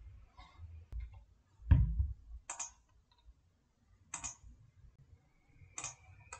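Computer mouse clicks, a handful of separate clicks about a second or more apart, the second one with a dull thump.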